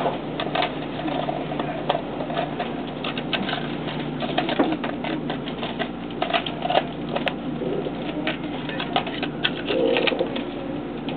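Inside the cabin of a stationary JR West 683 series electric train: a steady hum from the onboard equipment, with many scattered small clicks and knocks.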